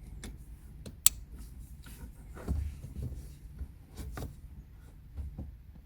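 Small plastic clicks and rubbing as a replacement push-button engine start switch is pressed and seated into its dashboard mount, with one sharp click about a second in.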